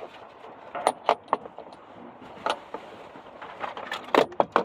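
A small die-cast toy car and its plastic packaging being handled: a string of sharp clicks and light rattles, a few around the first second and the loudest cluster near the end.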